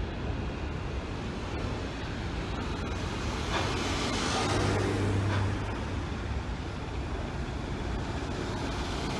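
Steady low rumble of a container freight train's wagons rolling past on a bridge. A car drives by close up about four seconds in, the loudest moment.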